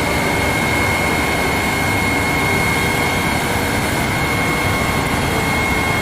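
Steady vehicle engine noise with a constant high-pitched whine, switching on abruptly and holding an even level throughout.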